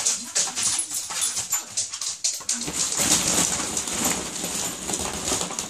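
Hollow plastic ball-pit balls clattering and rustling as a cocker spaniel jumps in and digs through them, the rattle growing denser about halfway in. The dog whimpers among the clatter.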